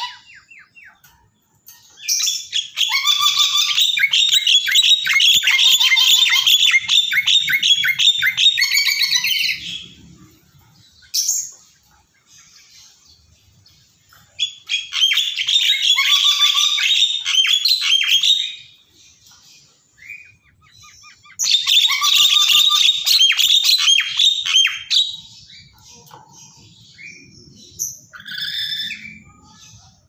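Black-capped lory calling in three long bursts of rapid, harsh chatter, each several seconds long, with a few short, fainter calls between them.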